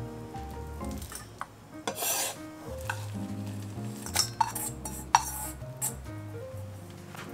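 Kitchen utensils stirring and scraping against cookware, then a few sharp clinks of metal on dishes between about four and six seconds in.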